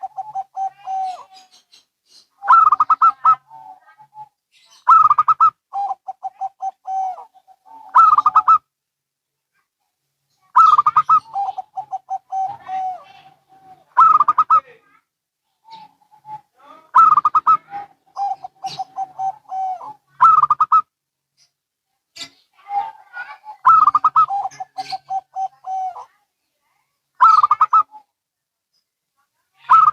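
Zebra doves (perkutut), local and Bangkok types, cooing back and forth. Each song is a quick rolling burst followed by a run of lower, evenly spaced notes, and one comes every two to three seconds, sometimes overlapping.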